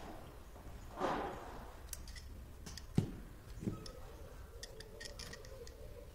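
A spring-loaded alligator clip and its test leads being handled: a short rustle about a second in, then a sharp snap of the clip near the middle and a smaller click just after, with light ticks between.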